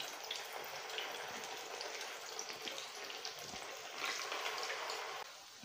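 Potato and semolina rolls sizzling as they deep-fry in hot sunflower oil, a steady hiss with fine crackles. The sizzle gets louder about four seconds in, then falls away near the end.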